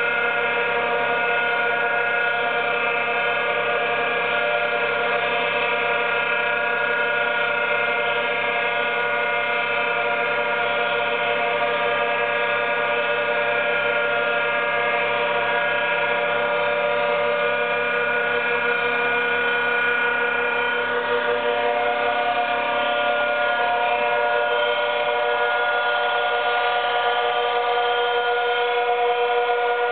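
Milling machine cutting a blackwood surface, its table fed by a DeWalt cordless drill on the feed screw: a steady, many-toned mechanical whine. The tones shift a little about two-thirds of the way through.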